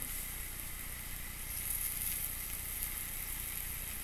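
Steaks with green peppers and onions sizzling on a ridged cast iron grill pan, a steady hiss of frying.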